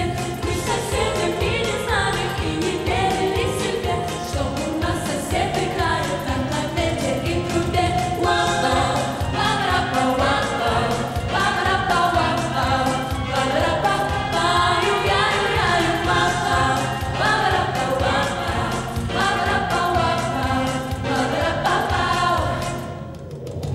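Female vocal group singing together into microphones over pop instrumental accompaniment with a steady drum beat. The sound drops briefly near the end.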